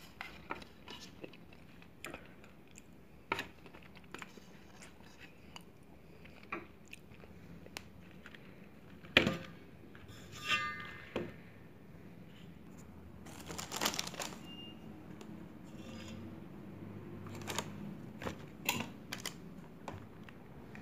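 Raw vegetables being picked up and moved about on a plate by hand: scattered light clicks, rustles and crunches, with one sharper knock about nine seconds in.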